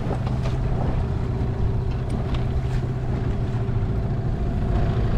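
Dinghy outboard motor running steadily under way, a constant low hum.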